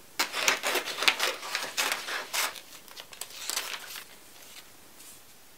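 Crinkling and rustling, like packaging being handled: quick irregular crackles for about four seconds, dying away shortly before the end.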